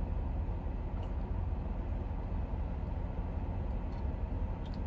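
Steady low rumble and hum inside a car cabin.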